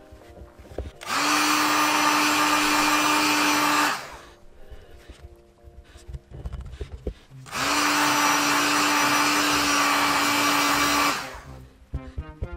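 Handheld hot-air blower (hair dryer or heat gun) switched on twice, running about three to four seconds each time with a steady hum under rushing air, heating a vinyl skin so it shapes itself to a pistol slide.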